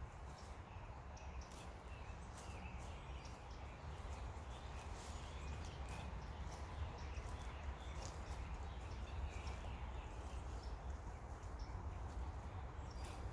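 Wind rumbling on the microphone, with scattered crackles and snaps of dry twigs and leaves as fallen branches are gathered.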